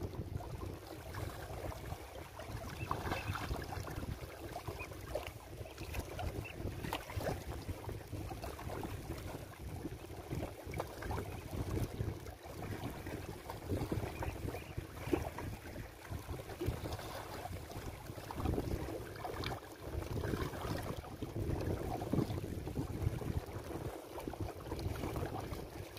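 Wind blowing on the microphone in uneven gusts, with small waves lapping against the shoreline rocks.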